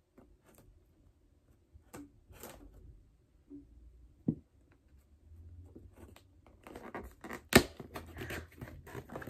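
Scissors scraping and snipping at the packing tape of a cardboard box, with scattered clicks and taps from handling the box. A single sharp click is the loudest sound, about three quarters of the way through, and the scraping and rustling grow denser near the end.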